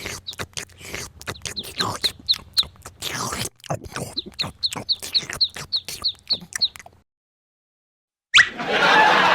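Short high chirps repeating about three times a second over rapid clicking and crunching, cutting off abruptly about seven seconds in. Near the end a noisier stretch starts, with a few sharp rising squeaks.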